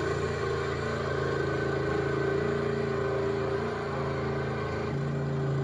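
Skid steer engine running steadily, its note shifting about five seconds in.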